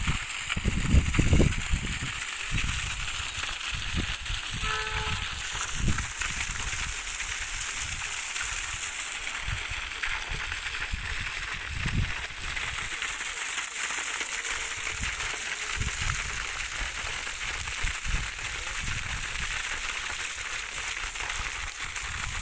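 Steady rushing, splashing water from a pump's delivery outlet, with irregular low thumps throughout and a short pitched sound about five seconds in.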